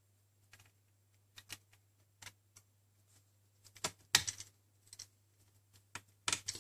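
Sparse, irregular light clicks and taps of a small screwdriver and screws against the metal case and drive bracket of an opened MacBook Pro. The loudest is a sharp tap with a brief scrape about four seconds in.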